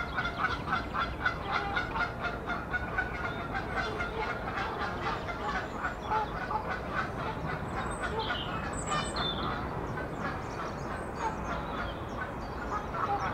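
Birds calling: a steady run of rapid, repeated honking calls, about five a second, with a few higher chirps from small birds about two-thirds of the way through.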